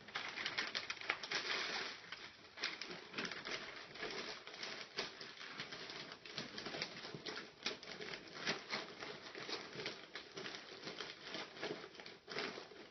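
Gift-wrapping paper rustling and crinkling as hands fold and press it down, a dense run of crackles that drops away right at the end.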